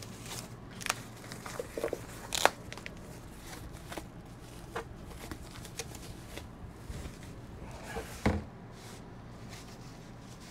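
Plastic packaging wrap crinkling and rustling as it is pulled off a new soundbar by hand, with scattered sharp crackles, the loudest about two and a half seconds in and just after eight seconds. A steady low hum runs underneath.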